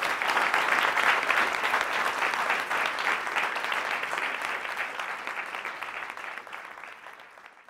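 Audience applauding, a dense patter of many hands clapping that fades away over the last few seconds.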